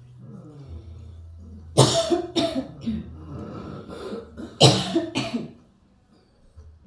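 A person coughing hard in two bouts, about two seconds in and again about five seconds in, each of two or three harsh coughs. It is the chronic cough of several months that has taken the patient's voice.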